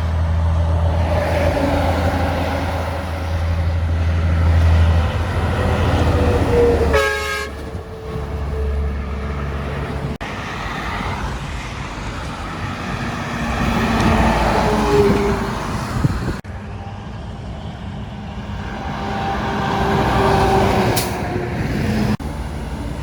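Semi trucks passing on a highway, engines and tyres swelling and fading as each goes by. About seven seconds in there is a short horn blast, and its tone is held for a few seconds afterwards.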